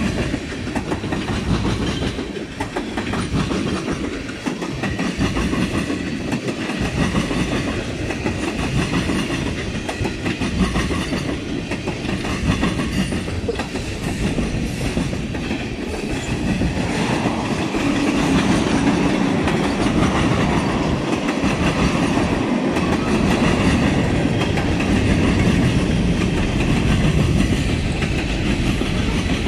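Tank cars and boxcars of a freight train rolling past close by: steady wheel-on-rail noise with wheels clicking over the rail joints, getting louder a little past halfway through.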